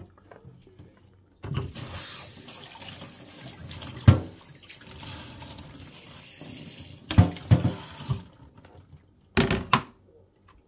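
Kitchen tap running into a sink for about six seconds while a cutting board is rinsed, then cut off. The board knocks against the sink or counter a few times; the sharpest knock is about four seconds in and the last ones come after the water stops.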